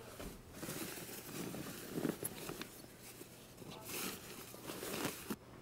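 Clothes rustling and swishing as a pile of garments on the floor is rummaged through by hand, in uneven handling noises that swell louder about two, four and five seconds in.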